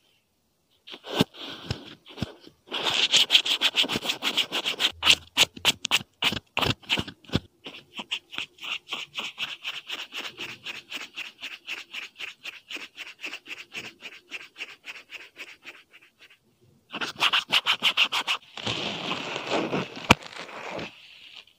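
Close-up foley rubbing and scratching, made to imitate hair being washed for ASMR. It comes as quick rhythmic strokes, about four a second, then stops briefly and resumes as a denser rubbing near the end.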